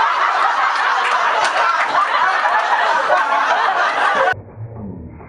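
A classroom of students laughing together, loud and dense. It cuts off abruptly about four seconds in, and a muffled, low sound follows.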